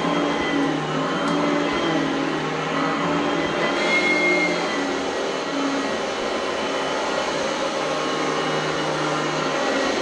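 Oreck Elevate Conquer upright vacuum cleaner running on carpet: a steady motor whine over airflow noise, rising briefly in pitch about four seconds in.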